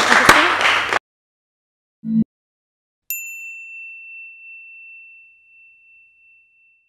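A single bell-like ding: one sharp strike whose clear high tone rings and dies away over about three seconds, a second after a brief low blip. Before it, voices and clapping cut off abruptly about a second in.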